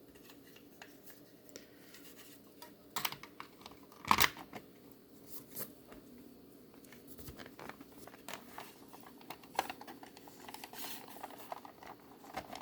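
Small clicks and taps of a plastic VHS cassette shell and its tape reels being handled, with a louder knock about four seconds in.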